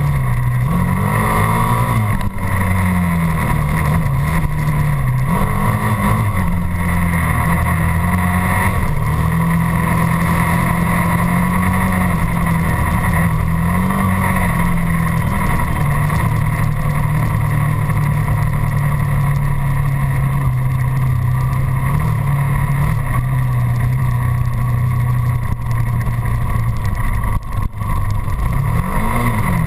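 Dirt bike engine running while riding, its note mostly steady with brief rises and falls in revs several times.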